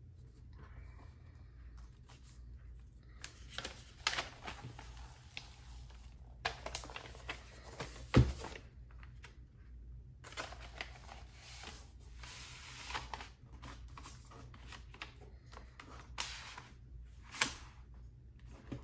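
A red vinyl LP being slid into its black inner sleeve, and the sleeve into the album jacket: several bursts of rustling and sliding, with a sharp knock about eight seconds in and a click near the end.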